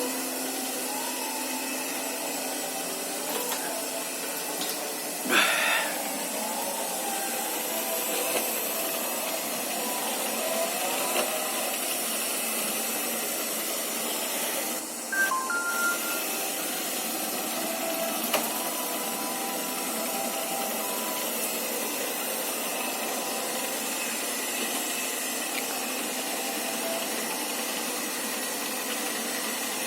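iLife V55 robot vacuum running steadily, its motor and brushes giving an even whirring hiss, with a knock about five seconds in and another brief clatter midway as it bumps into things.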